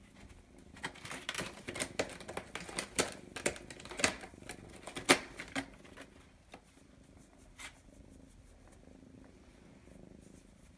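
A kitten purring softly under a run of irregular sharp clicks and scratches, about a dozen in the first half. After that it quiets to the purr, with one more click later on.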